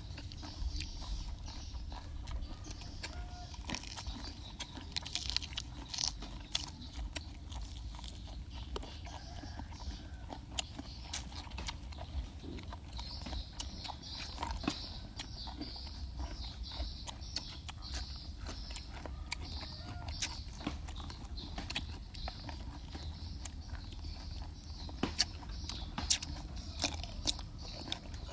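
Crisp crunching as raw cucumber and green papaya salad are bitten and chewed: many sharp, irregular crunches over a steady low rumble.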